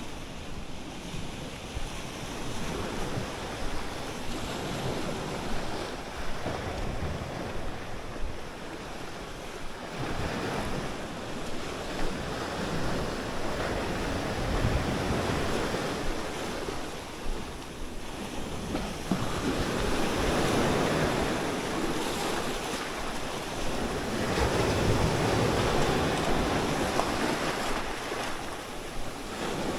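Small waves breaking and washing up over sand and rocks on a shore, swelling louder several times and strongest in the last third, with wind buffeting the microphone as a low rumble.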